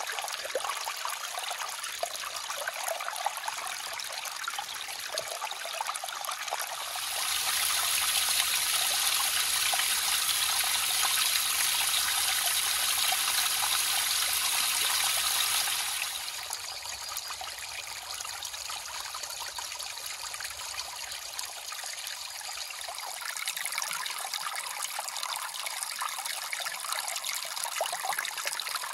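Shallow creek water trickling and splashing over layered shale ledges in small cascades, close to the water. The splashing grows louder and brighter from about a quarter of the way in to just past the middle, where a row of thin falls drops onto the stream bed, then eases back to a steady trickle.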